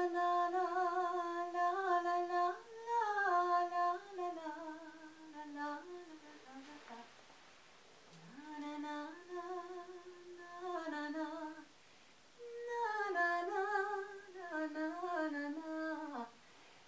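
A woman humming a slow, wordless tune in a single voice, phrase by phrase, with short breaths between phrases, one around halfway through and another about twelve seconds in.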